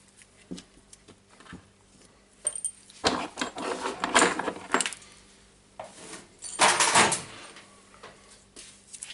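Small metal tools clinking and clattering as they are handled and set down on a wooden worktable. There are irregular clinks throughout, a busy stretch between about three and five seconds in, and another short clatter around seven seconds.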